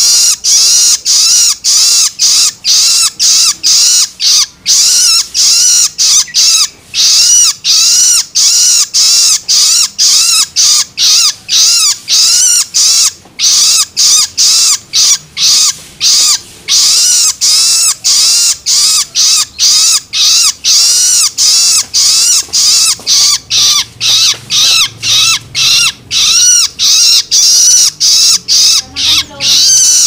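Juvenile long-tailed shrike (cendet) giving its begging call ('loloan'), a fledgling asking to be fed while gaping and fluttering its wings. The calls repeat about twice a second without a break, each a quick rise and fall in pitch.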